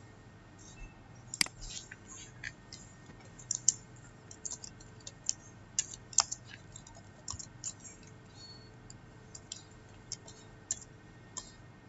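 Typing on a computer keyboard: irregular key clicks, a few of them much louder than the rest.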